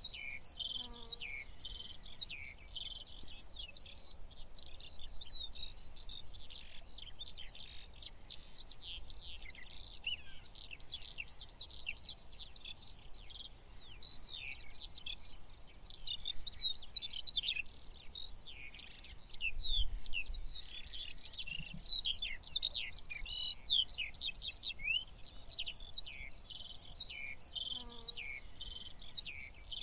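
Dense chorus of many small birds singing at once: a constant overlap of quick, high chirps and short sweeping notes.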